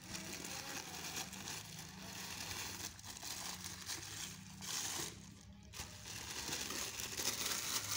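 Tissue paper crinkling and rustling as hands unfold it inside a cardboard shoebox, with a short pause about five and a half seconds in and louder rustling near the end.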